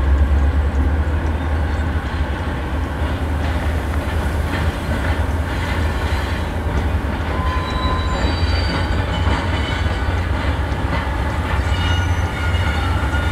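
Diesel locomotives hauling an intermodal freight train, a steady low rumble of engines and rolling cars. From about halfway in, faint high-pitched squeals come from the wheels on the rails.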